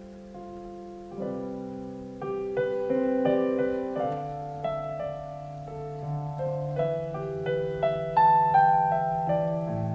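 Digital piano playing a slow instrumental passage of held chords, starting softly and growing fuller and louder from about a second in.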